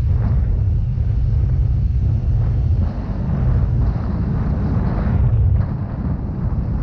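Riding noise from a Yamaha Mio Gravis, a 125 cc single-cylinder automatic scooter: wind buffeting the microphone in a heavy, unsteady rumble over the scooter running along the road.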